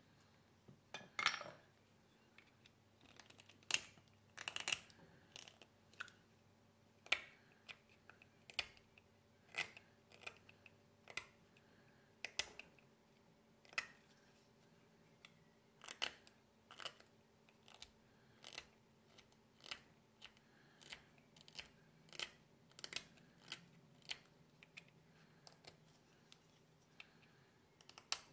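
Small hand carving blade paring a tagua nut (vegetable ivory), a short crisp scraping cut at roughly one a second, the first cuts the loudest.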